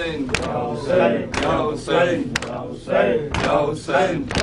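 Men chanting an Urdu noha (Shia lament) in unison, with a sharp chest-beating (matam) stroke about once a second that keeps the beat.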